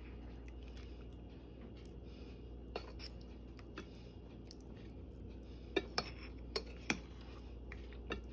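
A serving spoon scooping braised food onto rice in a glass bowl: scattered sharp clinks of the spoon against the dishes, a handful of them bunched about six to seven seconds in, over a steady low hum.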